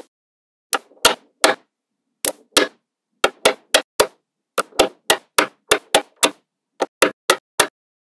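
Small magnetic balls snapping together with sharp clicks as strips of them are pressed onto a magnet-ball model: about twenty clicks, many in quick runs of two to four.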